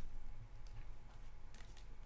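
Trading cards being handled: faint soft ticks and rustles as cards are flipped through by hand, one at a time.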